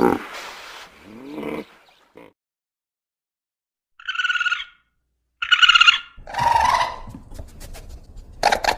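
Animal calls: a roar fades out in the first two seconds. After a short silence come two brief high-pitched calls, then longer lower calls and a rapid run of calls near the end.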